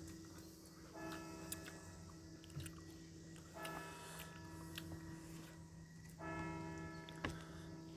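Bell-like chimes in a short ringing phrase that repeats about every two and a half seconds, with scattered sharp clicks between.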